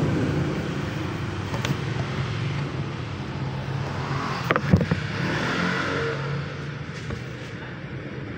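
A motor vehicle's engine running nearby, its hum slowly fading, over street noise. A few sharp knocks come about halfway through.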